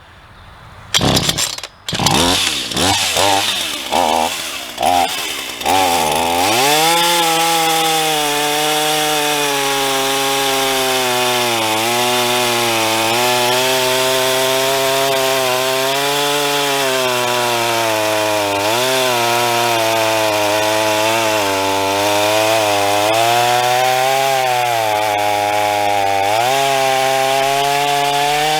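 Black Max 38cc two-stroke chainsaw sputtering and revving in short bursts for the first few seconds, then running steadily at high revs while cutting wood, its pitch dipping briefly now and then as the chain bites in.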